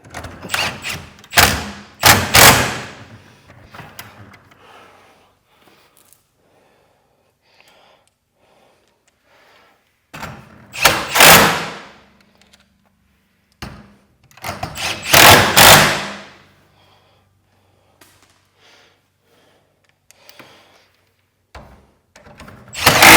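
Cordless impact wrench (Milwaukee M12) fastening garage door hinge bolts in separate bursts of about a second each, with pauses between them.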